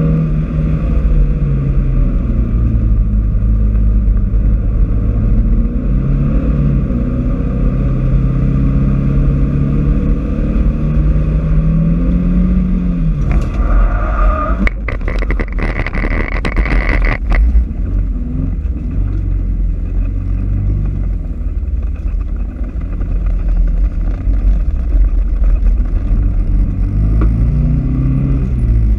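Alfa Romeo 1750 GT Veloce's twin-cam four-cylinder engine revving hard on track, its pitch climbing and falling with throttle and gear changes. About halfway, the engine note drops away and tyres squeal and scrub for a few seconds, then the engine pulls again.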